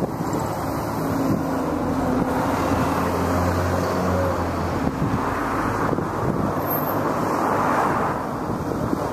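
Steady vehicle engine drone over a constant rush of traffic-like noise. The low engine tone fades out about halfway through, and the rushing noise swells slightly near the end.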